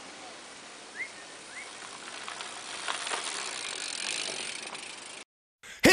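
A BMX bike rolling over a gravel road, its tyres crunching louder as it nears and passes, with a few sharp clicks, over a steady outdoor hiss. Two short rising chirps sound about a second in, and the sound cuts out shortly before the end.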